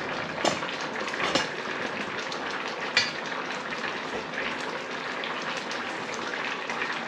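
Pots of callaloo simmering on an electric hob, a steady bubbling hiss, with a few light clicks in the first three seconds.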